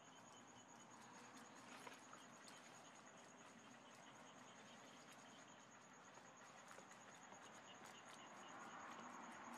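Faint outdoor quiet with an insect's steady high pulsing trill throughout, and scattered soft clicks and rustles of rabbits chewing fresh leafy greens.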